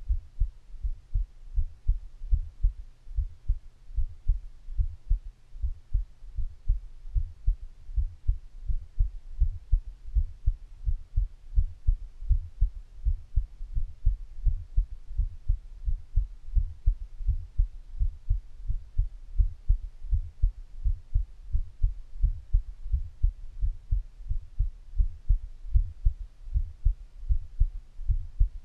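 A person's heartbeat picked up through the belly: a steady, regular run of low, dull thumps.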